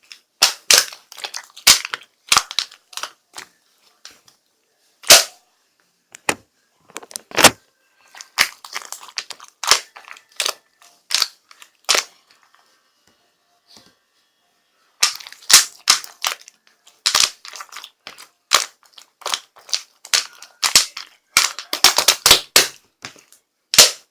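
Rapid sharp clicks and cracks in irregular bursts, with brief silent gaps and a longer pause about halfway through.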